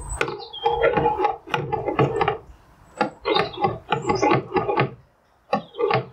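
Bursts of quick rubbing and scraping strokes, each burst about a second long, with short gaps between, from hand work at the top opening of a plastic IBC tote of apple juice as it is readied for stirring.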